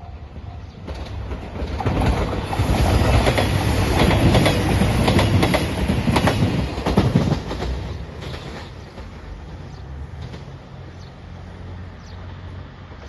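Three-car Nanpu limited express diesel train passing over a level crossing, with the wheels clattering over rail joints. It builds for about two seconds, is loudest for some five seconds with dense clicking, then fades away.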